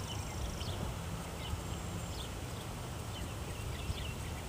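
Outdoor background: a steady low rumble with short, high chirps scattered through it, typical of small birds calling.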